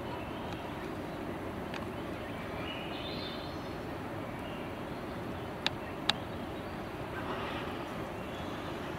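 Steady outdoor background hiss with faint bird calls, and two sharp clicks about half a second apart a little past the middle.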